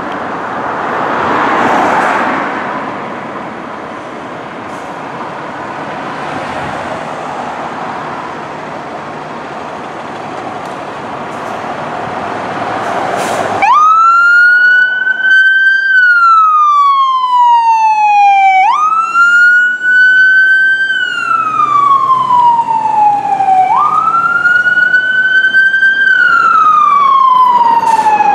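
Road and traffic noise, then a fire truck's electronic siren switches on abruptly about halfway through and sounds a wail. Each cycle climbs briefly, then slides down over about five seconds, and it runs through about three cycles.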